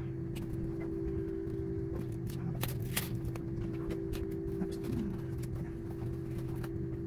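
Scattered light clicks and knocks of a drone and its controller being handled and fitted into a hard-shell carrying case, over a steady hum.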